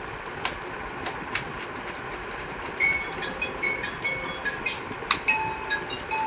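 A few sharp clicks and taps from parts being handled, over a steady background hiss. In the second half comes a run of short, high squeaks or chirps.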